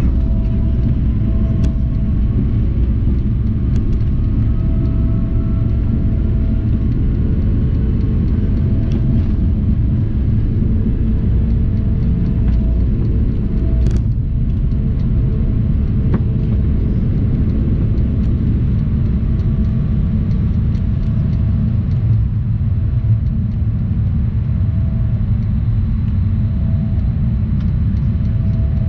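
Cabin noise of a Bombardier CRJ-200 regional jet on its takeoff roll and liftoff: a loud, steady rumble from the runway and its two rear-mounted General Electric CF34 turbofans at takeoff thrust. A faint whine rises in pitch over the first several seconds, and a single click comes about halfway.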